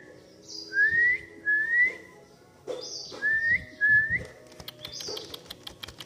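Clear whistled notes, each a short upward slide, given in two pairs. A brief higher, scratchier note comes before each pair. A run of faint quick clicks follows near the end.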